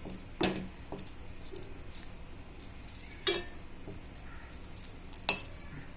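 A stirring utensil clinks and scrapes against a pan as betel leaves are sautéed lightly. There are three louder clinks a few seconds apart, with faint ticking between them.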